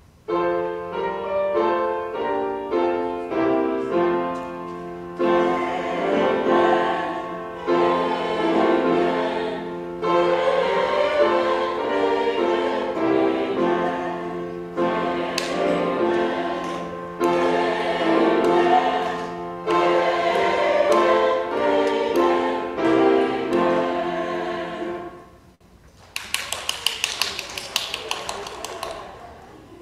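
Church choir singing a short sung response in several-part harmony, in sustained phrases, ending about 25 seconds in. It is followed near the end by a few seconds of rapid, irregular sharp clicks.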